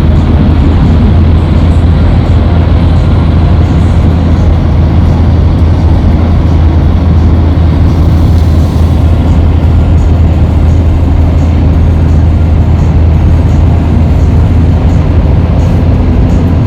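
Loud, steady rumble and hiss, strongest in a deep low hum, holding at the same level without a break.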